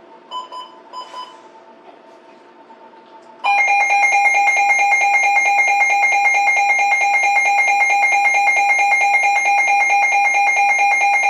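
Two short electronic beeps, then, about three and a half seconds in, a loud, shrill, steady electronic alarm tone with a fast pulse starts and keeps going: a weather radio's alert alarm.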